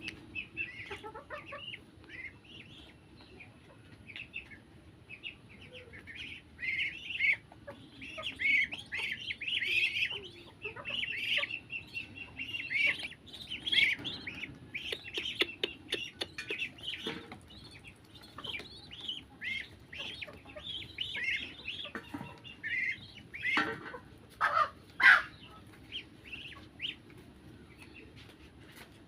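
Small birds chirping: many short, high chirps in quick, uneven runs, with a couple of louder calls about twenty-four seconds in.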